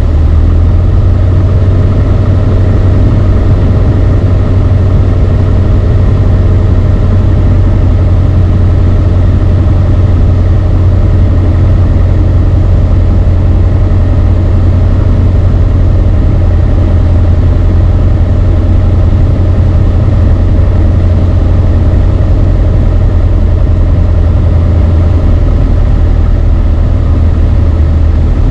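Beechcraft Sundowner 180's four-cylinder Lycoming O-360 engine and propeller droning steadily in the cabin, a loud, even low hum with no change in power.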